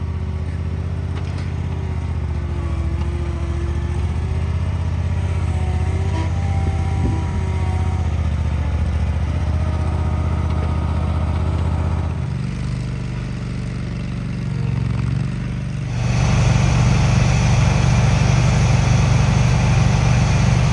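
Toro Wheel Horse 522XI garden tractor's engine running steadily as the tractor is driven down a trailer ramp onto grass. Its note changes about twelve seconds in, and near the end a louder, rougher engine sound suddenly takes over.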